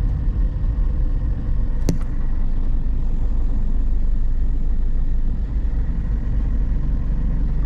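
Low, steady rumble of a car's engine and road noise heard from inside the cabin while the car moves slowly in heavy traffic. There is a single sharp click about two seconds in.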